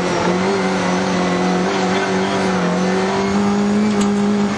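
Rally car engine heard from inside the cabin, held at high revs with a steady note that climbs slowly, over road noise. A short click about four seconds in.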